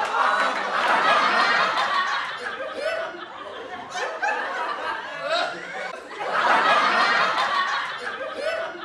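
A group of people laughing together, many voices overlapping, swelling loudest in the first couple of seconds and again about six to eight seconds in, with quieter chuckles in between.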